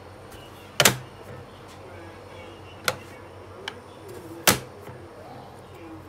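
Three sharp plastic knocks and clicks from the hinged dust-compartment lid of a Miele S381 canister vacuum cleaner being handled and shut. The first and last are the loudest.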